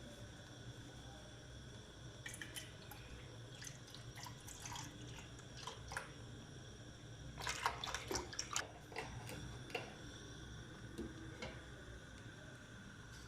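Milk being poured into a pan, faint irregular glugs, drips and small splashes that come thickest about seven and a half to eight and a half seconds in.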